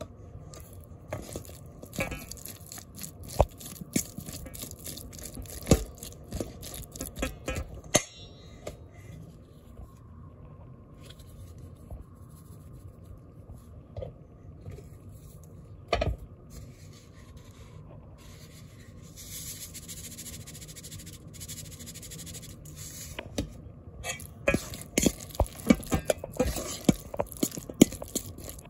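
Metal fork mashing and stirring canned chicken mixed with Miracle Whip in a metal bowl: repeated clicks and scrapes of the fork against the bowl, with wet squishing. The strokes come quickest and loudest near the end.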